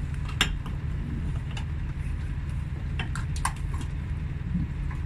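A semi truck's diesel engine idling steadily, with a few sharp metal clicks from the trailer's air-line glad hands being coupled, about half a second in and again around three seconds in.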